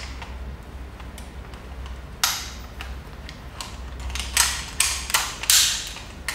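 Metal rope-access hardware clicking and rattling as a descender is fitted onto the rope: one sharp click about two seconds in, then a quick cluster of clicks near the end.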